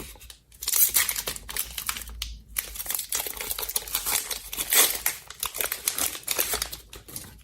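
Foil wrapper of a Pokémon TCG booster pack crinkling as it is handled and torn open, a dense run of irregular crackles that stops near the end.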